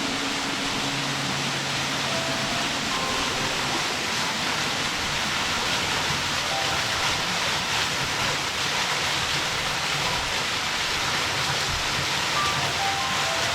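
Waterfall falling into its plunge pool: a steady, even rush of water that does not change.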